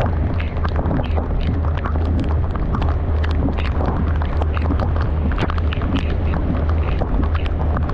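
Car driving in heavy rain: raindrops tick irregularly on the car over a steady low rumble of engine and road noise.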